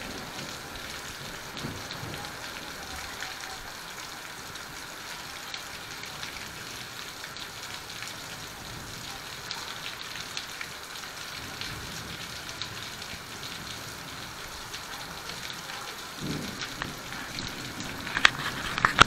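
Heavy rain falling steadily on a courtyard, a dense hiss with a constant patter of drops. A few sharper, louder taps stand out near the end.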